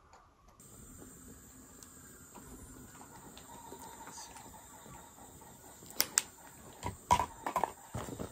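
Plastic meal-kit trays and food containers handled on a table: soft rustling over a faint steady hiss, then two sharp clicks about six seconds in and a quick cluster of clattering knocks a second later.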